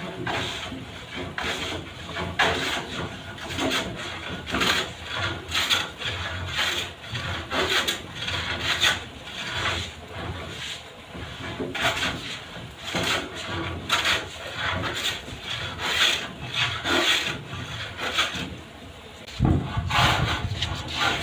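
Hand plane shaving the edge of a wooden flush door: repeated rasping strokes, roughly one a second. About nineteen seconds in, a low rumble comes in.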